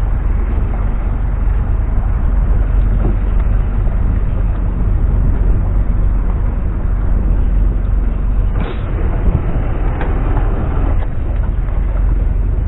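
A small fishing boat's engine running steadily, a constant low drone, with a brief knock about two thirds of the way through.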